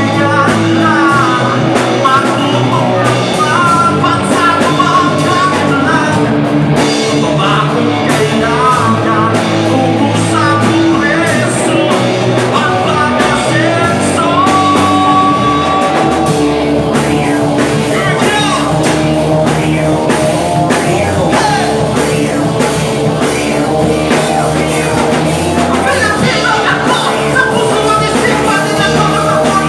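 Live rock band playing loud, with electric guitar and drum kit under a wavering lead melody carried at the microphone.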